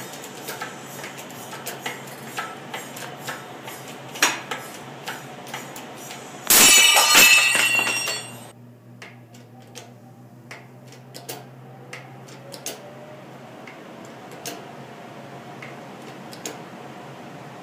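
Steel circular saw blade shattering under a hydraulic press about six and a half seconds in: a sudden loud crack and the ringing clatter of steel pieces, dying away over about two seconds. Before and after it, the bottle jack's hand pump handle clicks at each stroke.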